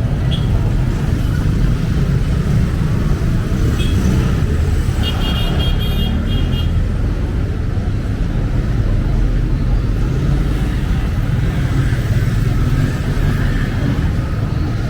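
Street traffic: a steady low rumble of vehicle engines close by, with a few short, high-pitched horn toots about four seconds in and again between five and seven seconds.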